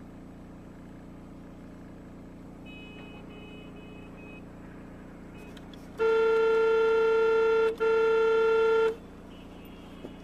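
Steady city traffic hum, then a car horn sounds about six seconds in: a long blast of nearly two seconds and a second, shorter blast right after it, a single steady pitch.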